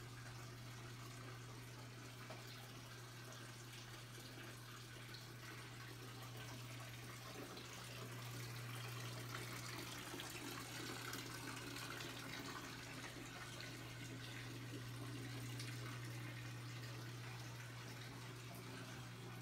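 Faint room tone: a steady low hum under a soft, even hiss.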